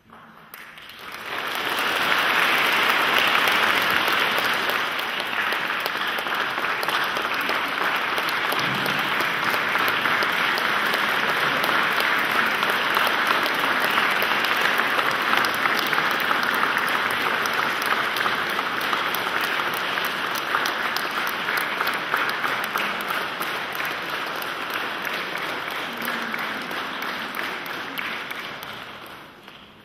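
A church congregation and clergy applauding: dense, steady clapping that swells up about a second in and dies away near the end.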